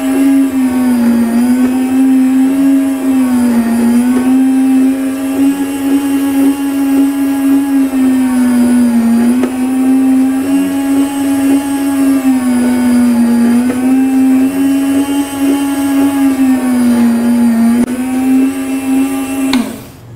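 Electric frozen meat slicer's motor and circular blade running with a steady hum, sagging slightly in pitch every two to three seconds as the carriage pushes frozen meat through the blade. It cuts off abruptly near the end when the machine is switched off.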